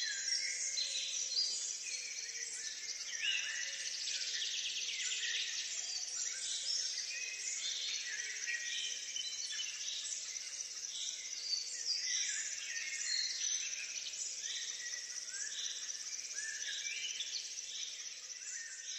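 A chorus of many small birds chirping and singing in quick overlapping phrases, over a high buzzing trill of insects.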